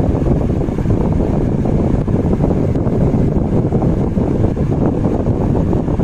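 Table fan running, its airflow buffeting the microphone as a steady, loud rushing noise.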